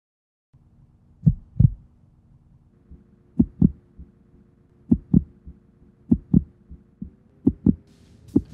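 Heartbeat sound effect: about six paired thumps, the pairs coming faster toward the end, over a low steady drone.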